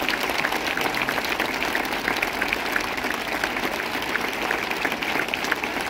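Sustained applause from many people clapping together, a steady dense patter of hand claps.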